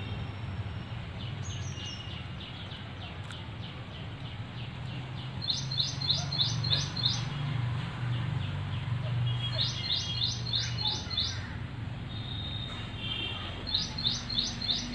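A bird singing a short phrase of five or six quick high notes, three times, about four seconds apart, over a steady low hum.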